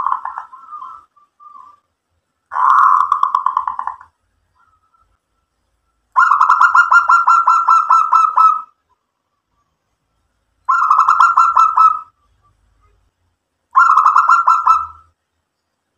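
Zebra dove (perkutut) cooing: fast, rattling strings of notes in four separate phrases of one to two and a half seconds each, with short silences between. The third phrase is the longest.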